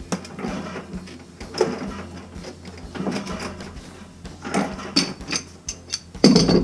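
Steel pipe wrench scraping and clicking against a pipe fitting as it is worked, a string of short metallic scrapes and knocks, with a louder clank about six seconds in.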